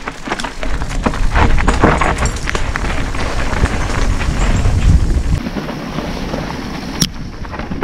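Mountain bike riding down a rough dirt trail: tyres running over dirt and stones and the bike rattling with many quick knocks, with wind rumbling on the action-camera microphone.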